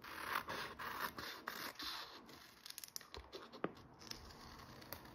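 Scissors cutting a sheet of iron-on transfer paper: a run of short snips and paper rustle, busiest in the first couple of seconds and then fewer, quieter clicks.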